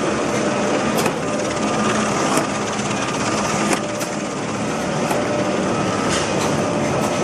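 Automatic corrugated carton folder-gluer running: a steady mechanical clatter of belts and rollers. Sharp clicks come roughly once a second as cardboard blanks feed through.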